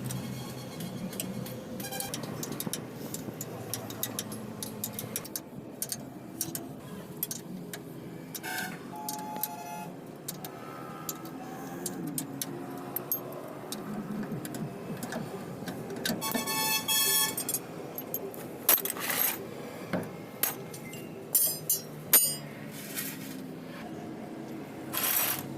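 Scattered metallic clinks and taps of tools and gear parts being handled, over street traffic with a vehicle horn sounding briefly a few times.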